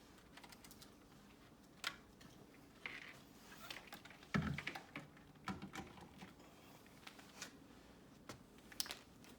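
Scattered light clicks and taps of hands handling fiber cable and small installation hardware, with a louder knock about four and a half seconds in.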